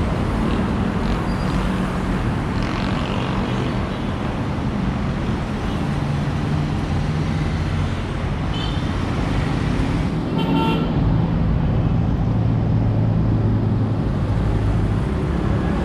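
Road traffic running steadily, a dense low rumble of engines, with a short horn toot about ten seconds in.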